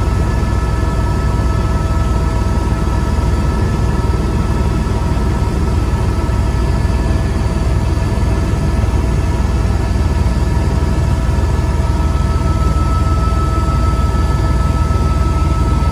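Helicopter cabin noise in flight: a loud, steady low rumble with several steady whining tones over it.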